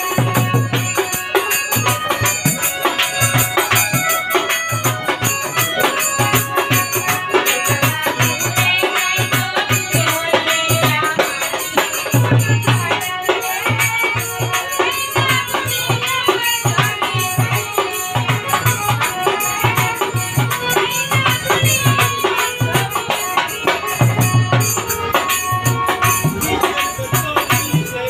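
Live Bengali Baul folk song: a male singer with a hand drum keeping a regular beat and rattling small percussion. It is a steady, continuous performance.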